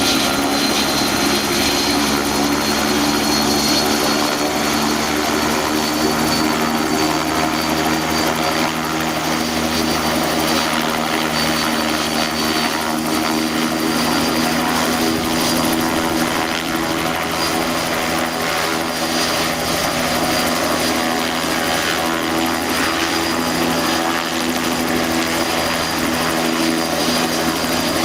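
Bell 206LT TwinRanger helicopter running with its twin turboshaft engines and rotor, a steady low hum under a high turbine whine that rises slowly in pitch.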